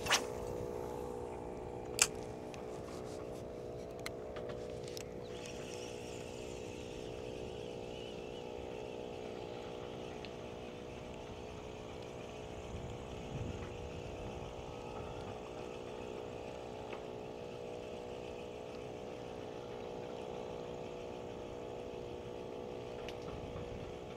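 A boat engine running at a steady, unchanging pitch, with a couple of sharp clicks near the start.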